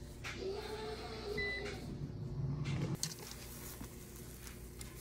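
Air fryer's touch control panel giving one short high beep about one and a half seconds in, over a steady low hum.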